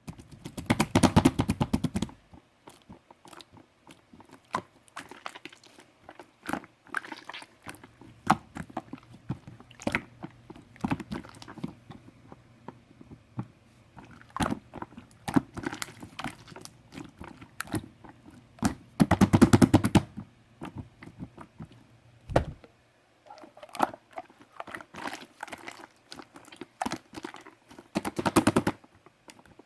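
Hands squishing and pressing bright white marbled slime, making a stream of small wet clicks and pops. Dense crackling runs of a second or two come at the start, about two-thirds of the way through, and near the end.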